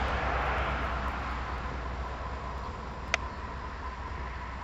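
A rushing background noise fading away over a steady low hum, with one sharp click about three seconds in.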